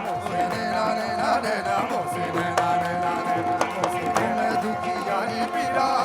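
Live folk qawwali music, apparently an instrumental passage: hand drums keep a fast beat under a long held note and a winding melody line.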